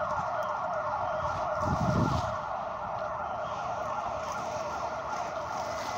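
A siren-like electronic alarm sounding continuously, a fast repeating warble held within one mid-pitched band.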